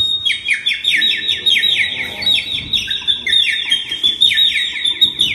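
Water-bird call sound effect: a rapid, continuous run of short, falling high chirps, several a second.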